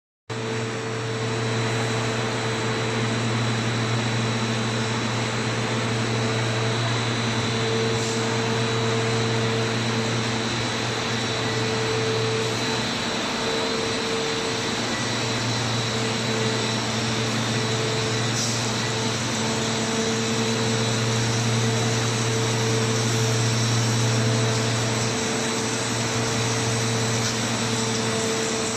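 A PET single-screw co-extrusion sheet line and its drying equipment running: a steady mechanical hum with a few constant tones under an even whirring hiss that does not let up.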